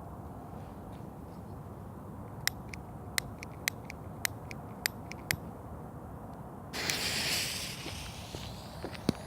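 A series of sharp clicks about every half second, then a lit firecracker fuse suddenly hissing and fading over a second or two, with a few small crackles near the end.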